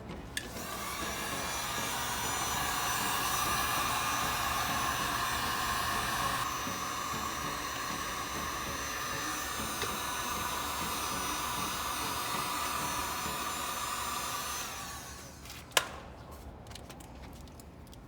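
A small electric blower motor runs with a steady, airy hiss. The tone shifts about six seconds in, and the motor winds down and stops near the end. A single sharp click follows.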